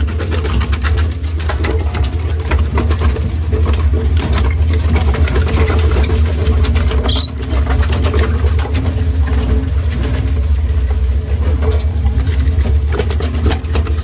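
Gross Gaz 62 E drum wood chipper running under load, its knife drum chopping wooden offcuts and laths into chips: a steady low hum under a dense, rapid crackle and clatter of cutting.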